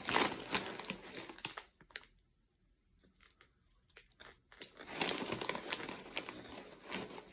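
Crinkly snack-chip bag rustling and crinkling as it is handled, in two spells with a near-quiet gap of about three seconds between them.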